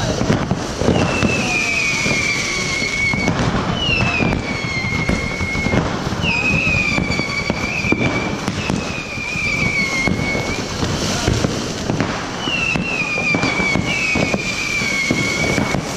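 Whistling fireworks, about six shrill whistles of roughly two seconds each, each dropping slightly in pitch, over continuous crackling and popping from other fireworks.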